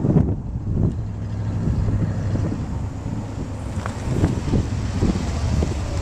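Chevrolet snowplow pickup truck's engine running, a steady low hum, with wind gusting on the microphone.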